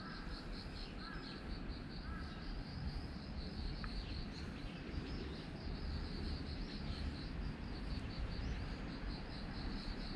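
Insects chirping steadily in a high, fast pulse, about four chirps a second, with a few short bird chirps in the first two seconds. A steady low rumble runs underneath.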